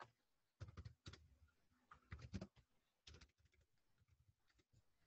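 Faint typing on a computer keyboard: several quick runs of key clicks with short pauses between them.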